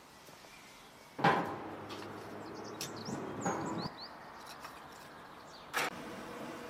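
Split kindling sticks knocking and clattering as they are handled and laid by a small metal wood stove, with a sharp knock about a second in and another near the end. Small birds chirp briefly in the background.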